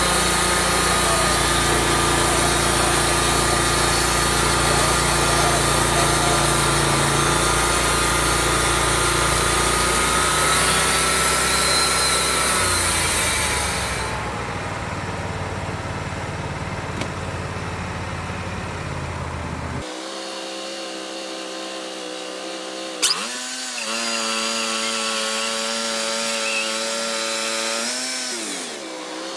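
Wood-Mizer LT40 Hydraulic band sawmill sawing through a maple log: the engine runs under load with the steady hiss of the blade in the wood. About halfway through, the pitch slides down and the cutting hiss stops as the cut ends. After that the engine runs steadily, dipping briefly in pitch twice near the end.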